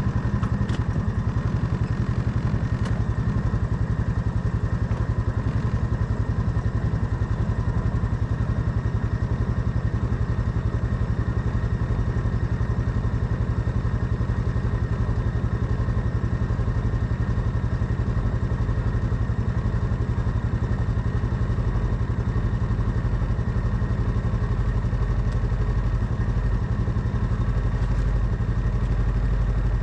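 Quad bike engine idling steadily, with an even, rapid low pulse.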